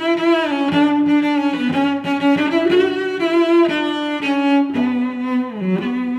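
Background music: a melody on bowed strings in long held notes that step from pitch to pitch.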